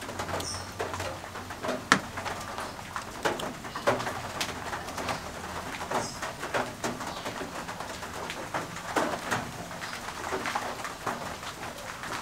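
Foam on a washing-soda electrolysis bath crackling as its bubbles pop, heard as a light, irregular run of small ticks and pops.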